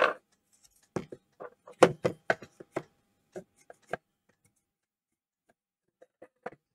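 Irregular short knocks and scrapes from a circuit board being handled and wiped clean of flux residue on a wooden workbench. They come as a quick run in the first four seconds, with a few lighter taps near the end.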